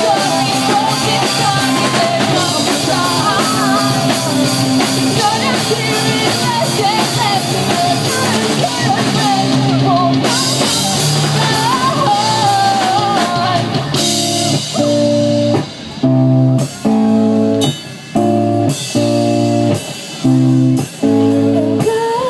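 Live rock band playing, with electric guitar, drum kit and a wavering melody line, possibly sung, over it. From about two-thirds of the way in, the band switches to short, hard-stopped chord hits played together, with brief gaps between them.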